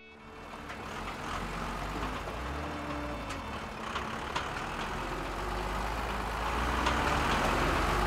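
Heavy military trucks driving: a deep engine rumble with road noise that fades in and grows steadily louder as the convoy approaches, with a few sharp knocks or rattles.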